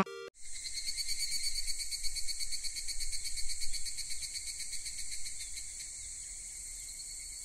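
A steady, high-pitched, finely pulsing chirr like crickets or other insects. It wavers in loudness for the first five seconds or so, then settles a little quieter.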